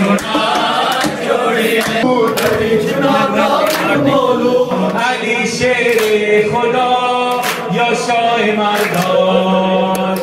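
Men singing a devotional chant together to hand clapping, with sharp claps cutting through the voices.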